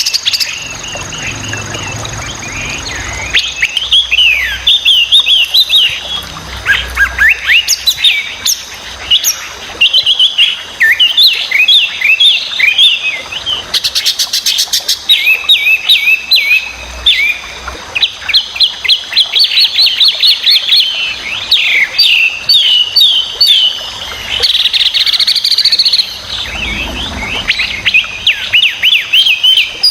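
Chinese hwamei (Garrulax canorus) singing a loud, varied song of rapid whistled notes, phrases coming in quick bursts with short pauses between them. A faint steady high whine runs underneath.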